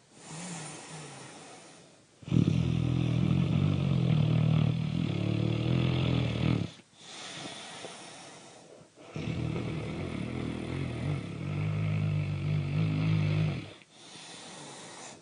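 Loud snoring: two long, low snores of about four seconds each, with quieter breathy breaths before, between and after them.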